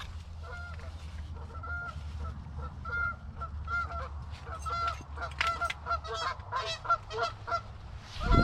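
Canada goose honking and clucking: many short, repeated honks, some in quick runs, over a steady low rumble.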